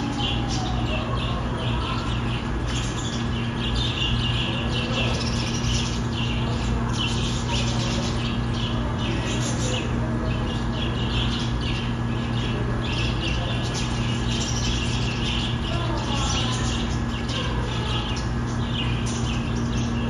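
A flock of budgerigars chattering and chirping continuously, over a steady low hum.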